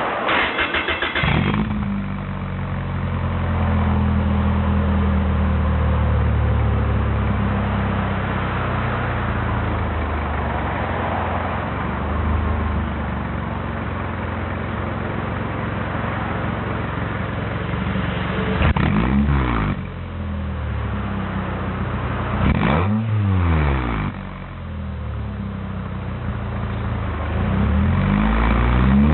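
Toyota Altezza SXE10's 3S-GE four-cylinder running through a Kakimoto Kai aftermarket exhaust with its inner silencer fitted and the catalytic converter retained. It is started in the first second or so and settles into a steady idle. It is blipped twice in the second half, and the revs rise again near the end.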